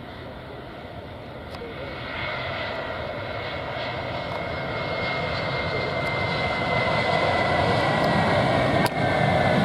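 A twin-engine Airbus A321 jet airliner landing: steady jet engine noise that grows louder as it touches down and rolls out, with a high whine slowly falling in pitch.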